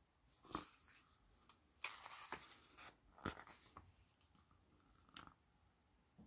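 A page of a hardcover picture book being turned by hand: faint paper crackles and a brief rustle, with a few sharp snaps as the page is lifted and laid down.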